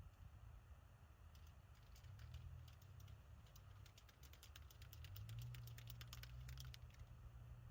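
Near silence with faint, quick light clicks and taps of small brake caliper parts being handled while the guide bolts are greased, over a low steady hum.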